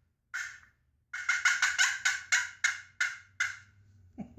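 Friction pot turkey call played as a fly-down cackle: one sharp note, a short pause, then a fast run of about ten sharp notes that slow and fade near the end.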